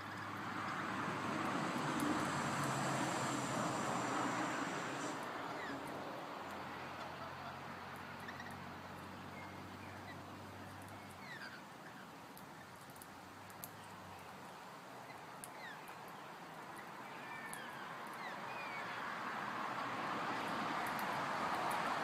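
Road traffic: a vehicle passes with a rushing swell over the first few seconds and another approaches near the end. In between, birds give scattered short, high chirps.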